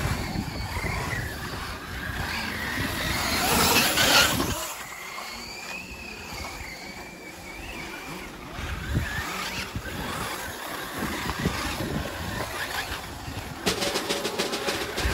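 Electric RC cars, a Traxxas Slash 4x4 VXL short course truck and an XRAY XB8e buggy, running on a dirt track, their brushless motors whining up and back down as they accelerate and brake. A low rumble fills the first few seconds, and a fast rattle starts near the end.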